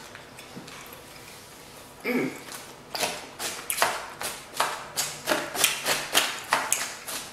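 A fork stirring and stabbing crisp salad leaves in a plastic takeout container: a run of short, crisp rustling strokes, about three a second, starting about three seconds in.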